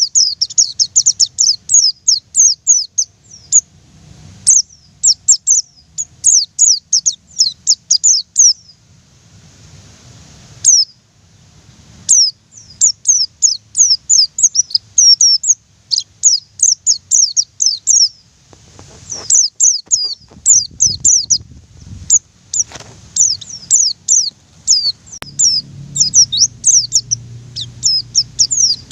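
White-eye (pleci) singing in long runs of rapid, high, thin chirps, broken by short pauses.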